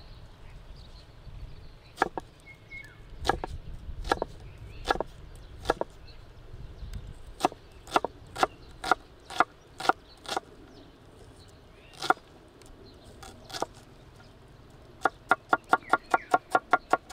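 Chef's knife chopping a white onion on a thick wooden chopping board. Single cuts knock on the board at uneven gaps, then a quick run of about five chops a second near the end as the onion is diced.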